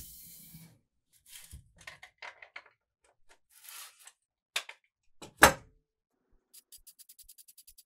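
Metal handling noises from a rusty steel hand bike pump being worked apart with pliers: scattered scrapes and clicks, then a sharp knock about five and a half seconds in. Near the end comes a fast run of small ticks as the threaded cap is twisted on the rusty barrel.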